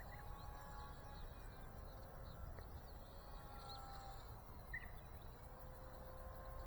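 Faint thin whine of a small electric RC plane's brushless motor and propeller in flight, drifting in pitch, over a low wind rumble on the microphone, with scattered short bird chirps.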